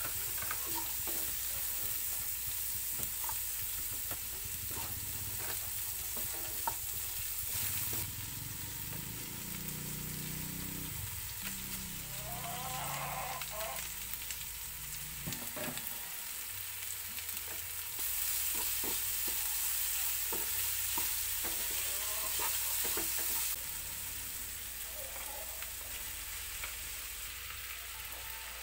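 Diced food sizzling in oil in a frying pan, with the clicks and scrapes of a wooden spatula against the pan as it is stirred.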